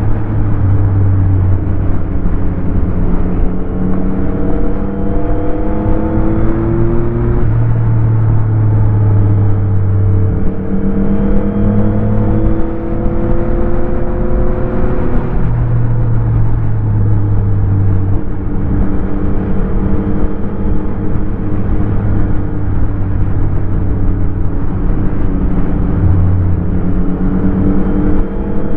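Motorcycle engine under way, its pitch climbing several times as the throttle is opened and then dropping back as it eases off or shifts, over a steady rush of wind noise.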